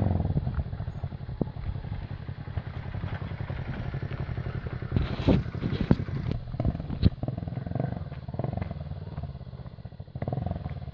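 Motorcycle engine running as the bike moves along, a dense rapid pulsing throughout, with a few sharp knocks about five to seven seconds in.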